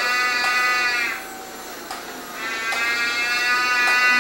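Mechanical toy cow mooing twice: the first moo ends about a second in, the second starts just past halfway, each a steady call about two seconds long that drops slightly in pitch at its end.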